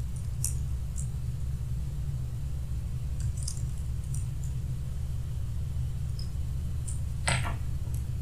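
A few scattered computer-keyboard key clicks as a verification code is typed, then one louder click near the end, all over a steady low electrical hum.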